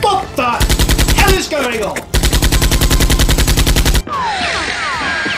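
Two bursts of rapid automatic machine-gun fire sound effect: a short one about half a second in and a longer one of nearly two seconds starting about two seconds in. Background music with falling chirps returns near the end.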